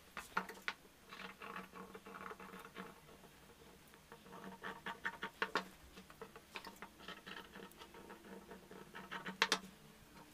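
Cut cotton blouse fabric being handled, folded and slid over a cloth-covered table: faint rustling and scratching in bursts, with a few sharper clicks.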